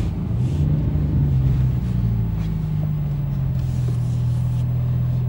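Porsche 911 Turbo (991)'s 3.8-litre twin-turbocharged flat-six idling at about 1,000 rpm as the car rolls slowly to a stop, a steady low hum heard from inside the cabin.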